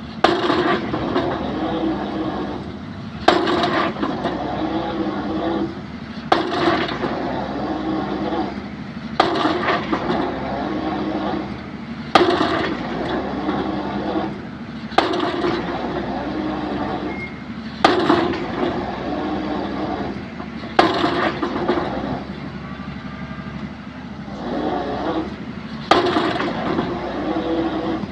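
Excavator drop hammer striking a pile, one sharp blow about every three seconds, with the excavator's engine and hydraulics running steadily between blows.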